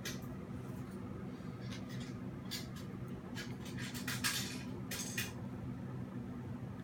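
Short scratchy strokes of a paintbrush on a painting surface, about half a dozen, the longest a little past four seconds in, over a steady low hum.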